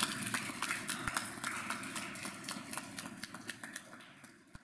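Audience applauding with many irregular claps, dying away steadily and ending at the close.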